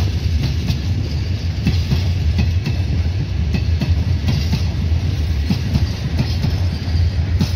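Freight train of open wagons rolling past, a steady low rumble with wheels clicking irregularly over rail joints.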